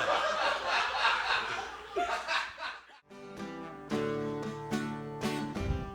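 Audience laughing for about three seconds, then a sudden cut to strummed acoustic guitar music.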